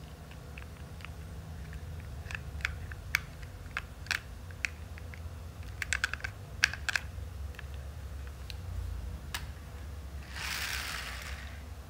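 Irregular light plastic clicks and taps from a plastic toy skip-loader garbage truck being handled and turned in the hands, over a steady low hum. A brief hiss comes near the end.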